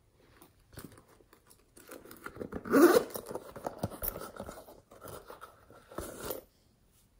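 Zip of a blue vinyl toy-shaped zipper pouch being opened, and the pouch and its contents rustling as they are handled. The sound comes in short raspy runs, loudest about three seconds in.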